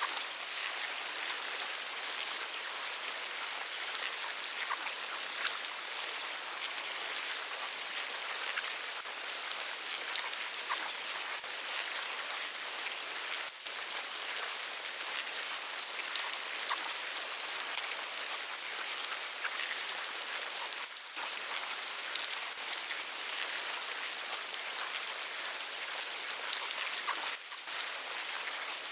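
Insect larvae: a dense, steady crackle of countless tiny ticks, dropping out for an instant three times, about 13, 21 and 27 seconds in.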